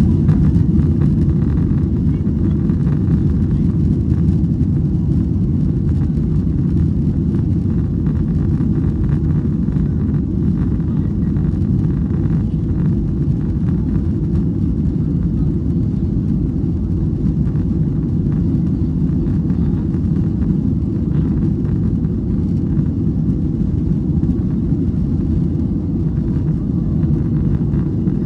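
Jet airliner heard from inside the cabin during its takeoff run: engines and runway roll make a loud, steady low rumble that holds even throughout.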